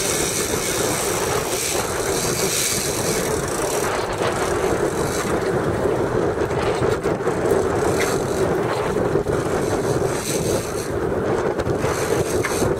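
Fishing boat's engine running steadily, a constant low hum under a rushing noise.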